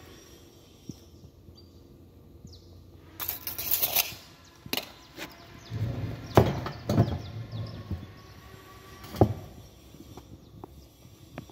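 A short rustle, then a handful of sharp knocks and dull thumps at uneven intervals; the loudest come about six and a half seconds in and just after nine seconds.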